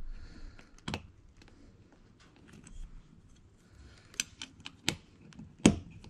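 Light plastic and metal clicks and taps as the parts of a GM seat belt buckle are handled and its plastic housing is fitted over the spring and latch mechanism: one click about a second in, a quick cluster about four to five seconds in, and a sharper one near the end.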